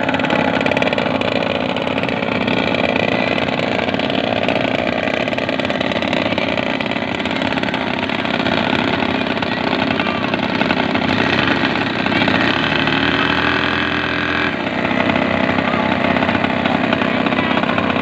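Small engine of a miniature squid-fishing boat model running steadily, with a brief dip and change in its note about fourteen seconds in.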